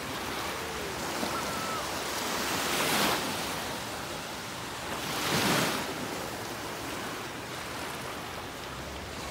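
Small Gulf of Mexico surf breaking and washing over the shallows. It is a steady rush that swells twice, about three seconds in and again about five and a half seconds in.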